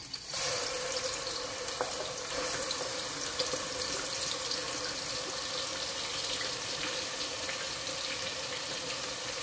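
Finely chopped onions sizzling in hot oil in a steel pot. The sound starts suddenly as they go in, then settles into a steady crackling hiss.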